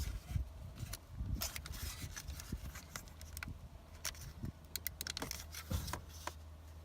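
Scattered light plastic clicks and rattles as a window switch is worked by hand in the armrest trim of an Audi A4 door panel, with a low steady hum underneath.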